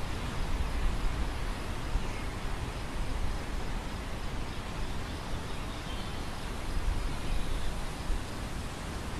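Wind over an open grain field: a steady rushing noise, with gusts rumbling low on the microphone that swell a few times.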